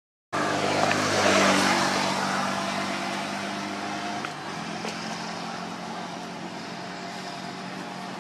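A motor vehicle engine running steadily, its note shifting slightly about four seconds in. A short dropout in the sound right at the start.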